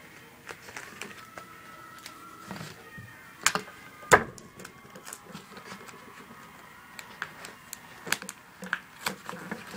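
Paper and scotch tape being handled on a tabletop: scattered taps, crinkles and clicks, with two louder knocks about three and a half and four seconds in.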